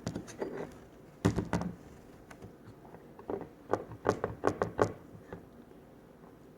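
Spoon knocking and tapping against a bowl as slime is stirred, in irregular clusters of short taps: a few at the start, a burst about a second in, and a longer run from about three to five seconds in.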